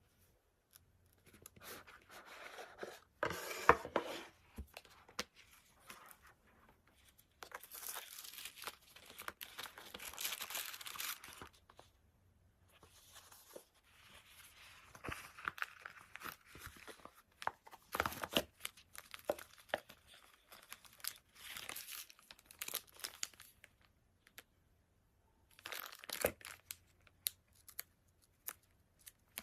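Thin wrapping material being torn and crinkled by hand, in irregular bursts with short pauses between them.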